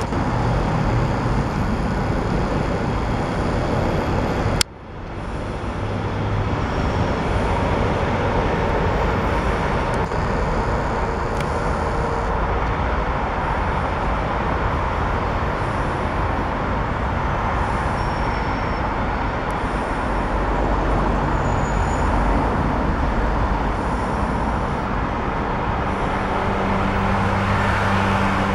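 Steady traffic noise from a busy multi-lane motorway, with cars and lorries passing. About four and a half seconds in there is a sharp click, and the level drops briefly.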